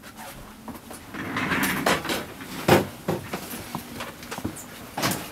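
Handling noises: a stretch of rustling followed by scattered sharp knocks and clicks, the loudest about three seconds in and another near the end.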